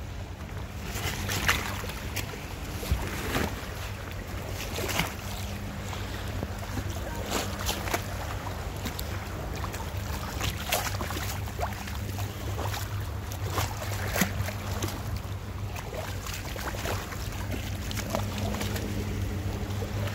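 A steady low engine hum, with shallow sea water washing among shoreline rocks and scattered sharp clicks and knocks of stones and shells underfoot.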